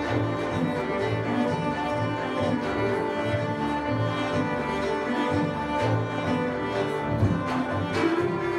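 Live folk instrumental: a violin plays a melody over a walking double bass line, with a few drum strikes near the end.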